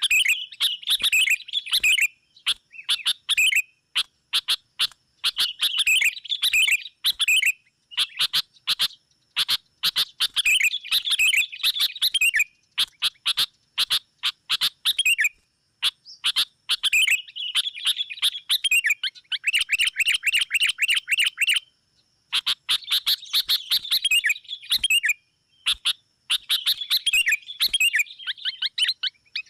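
Sooty-headed bulbuls giving bouts of fast, agitated chattering calls, the noisy challenge call used to lure in rival bulbuls, with a quicker, even rattle about twenty seconds in.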